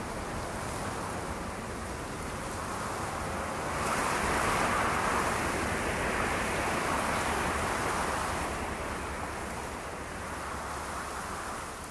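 A steady rushing noise with no tones in it, like the sound-effect bed of wind and water. It swells about four seconds in and eases off toward the end.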